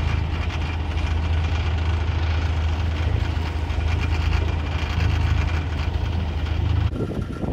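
A boat engine running with a steady low hum, the yacht motoring in to its mooring.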